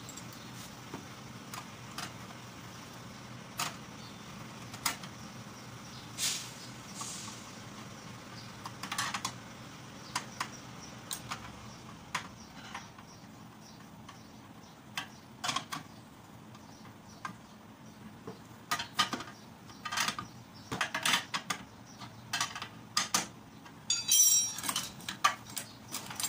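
Hand tools and metal engine parts of a Honda GX110 small engine clicking, tapping and knocking during bench assembly: scattered light clicks at first, then quicker and louder knocks and clinks in the second half, with a short metallic rattle near the end. A steady low hum runs underneath.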